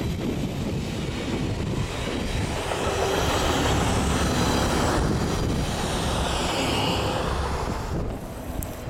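DSB IC3 diesel multiple unit passing close at speed: a steady rush of wheels on rail and running gear that swells in the middle and drops away near the end, with a high thin whine that falls in pitch as the train goes by.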